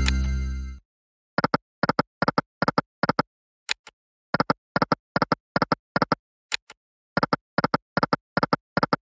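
Video slot game sound effects. A chiming win sound fades out within the first second. Then come three quick spins, each with a short high click followed by five short pitched tones, one as each reel stops.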